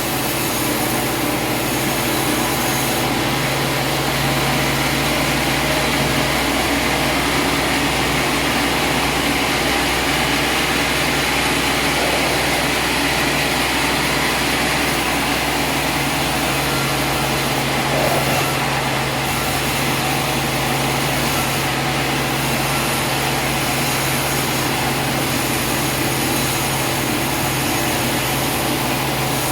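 An engine running steadily at an even speed with a constant hum, with no pauses or changes in load.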